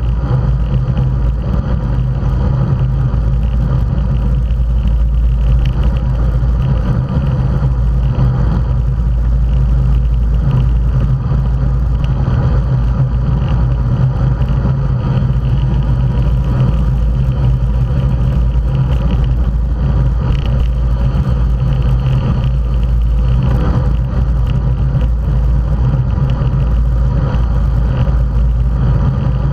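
Steady, loud wind rush on a bicycle-mounted camera's microphone at road-race speed, with the hum of road tyres rolling on asphalt.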